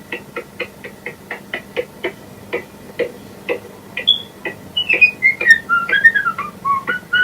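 Cartoon soundtrack: a steady beat of short clicks, about four a second. About four seconds in, a whistled tune joins it, sliding up and down in pitch and getting louder.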